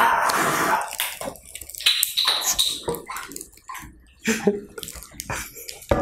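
A bottled lemon drink being drunk fast from the bottle: a loud gush of liquid in the first second, then scattered slurps, gulps and short wet clicks.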